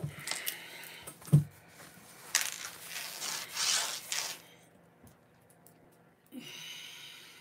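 Close handling noises: a sharp knock, then about two seconds of rubbing and rustling, then a fainter rub near the end.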